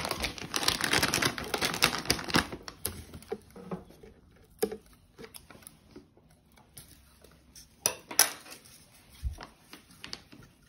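Paper bedding rustling and crackling as a hand spreads it through a plastic hamster cage, then scattered light clicks and knocks of items being set into the cage, with sharper knocks about four and a half and eight seconds in.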